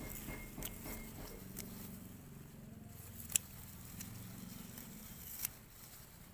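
Hand pruning shears snipping through leafy vegetable stems: a few separate sharp clicks, the loudest a little past the middle.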